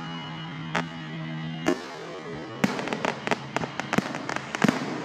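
Aerial fireworks going off: two separate bangs in the first two seconds, then a rapid string of crackling reports through the second half.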